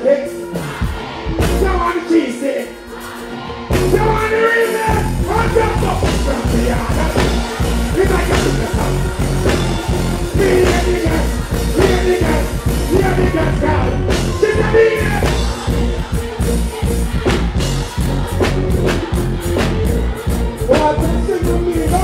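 Live dancehall music played loud through a stage sound system, with a performer singing and deejaying into a microphone over a heavy bass beat. The bass drops out about two seconds in and comes back in about four seconds in.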